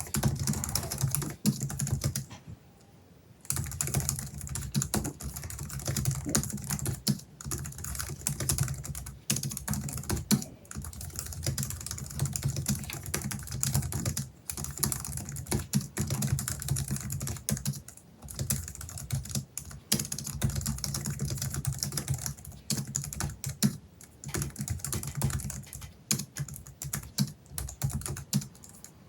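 Fast, continuous typing on a Logitech MX Keys Mini's bare low-profile scissor-switch keys, with no silicone key skin fitted: a dense run of quick key clicks and keystrokes, pausing briefly about two seconds in.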